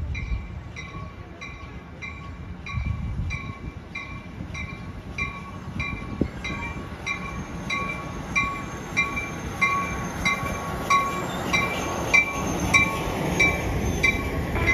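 A grade-crossing warning bell ringing steadily, about three strikes a second. Under it an Amtrak Pacific Surfliner bilevel train rumbles in, growing louder from about halfway through as it pulls alongside.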